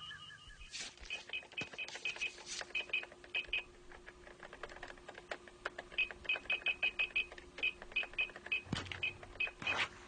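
Electronic computer-console beeps in quick clusters, mixed with keyboard-like clicking, over a steady low electronic hum.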